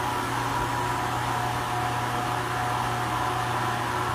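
CNC milling machine running: a steady low hum with a high, even whine from the spindle.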